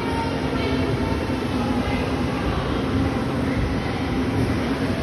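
Go-karts running around an indoor track: a steady din of motor and tyre noise echoing in the hall, with a faint hum.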